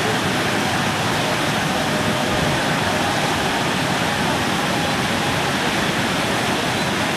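A river in monsoon flood rushing over a low causeway: a steady, even rush of fast, churning water.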